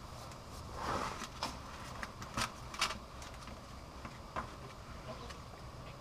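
Faint handling clicks and a short rustle from a cardboard bag-in-box oil container and its plastic spout, held over a skid-steer's chain case while it is filled with oil. There are a few sharp clicks between about one and four and a half seconds, over a low steady hum.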